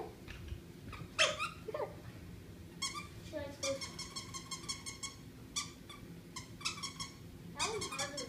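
Squeaky plush dog toy squeaking in quick runs of short, high squeaks, about three or four a second, as a golden doodle puppy bites at it.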